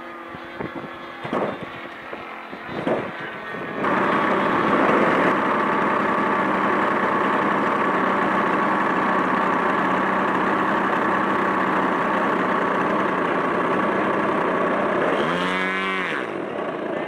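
Radio-controlled model airplane engine: a faint distant buzz at first, then a loud steady drone from about four seconds in. Near the end its pitch dips sharply and climbs back up as the plane comes in over the runway.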